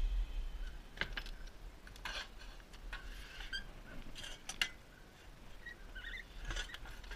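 A handful of short metal clicks and clinks, about a second apart: a sliding bolt latch on a shed door being worked, then a stainless steel bowl being lifted out through a window.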